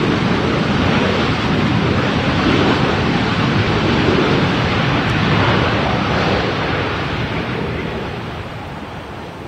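Boeing 737 jet engine noise as the airliner lands: a loud, steady rush that fades away over the last few seconds.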